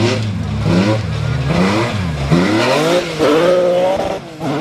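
BMW 1M Coupé rally car's engine revving hard under acceleration, its pitch climbing and dropping several times as it changes gear, with a brief lift off the throttle near the end before it picks up again.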